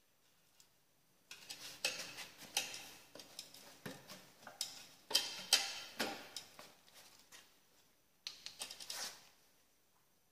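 Metal parts and tools clinking and knocking in quick irregular runs of light clicks: two bursts, the second short and near the end.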